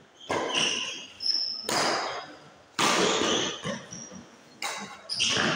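Badminton rally: rackets striking the shuttlecock about five times, roughly a second apart, each hit echoing in the hall, the loudest about three seconds in. Shoes squeak briefly on the court floor between the hits.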